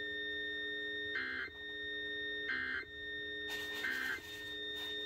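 Emergency Alert System end-of-message data bursts: three short, harsh digital bursts about a second apart, closing the tornado warning broadcast. A steady hum of tones runs underneath, with a brief patch of hiss around the third burst.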